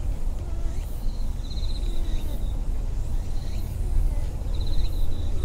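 Wind buffeting the microphone as an uneven low rumble, with a short, high, pulsed chirp repeating about once a second in the background.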